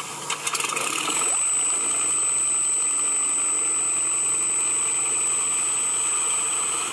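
A model Spitfire's onboard sound system playing back a recorded Rolls-Royce Merlin V12 engine idling. It starts about a second in after a few clicks and runs steadily, with the thin high whine of the electric motor turning the propeller alongside it.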